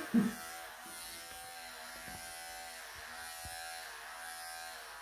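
Electric pet clippers running while shaving a Maine Coon's coat: a steady buzzing hum whose pitch wavers slightly.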